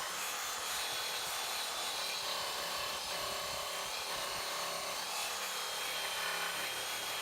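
Reciprocating saw with a bimetal blade cutting steadily through steel screws driven into wood: a continuous rasping buzz with a faint wavering high whine.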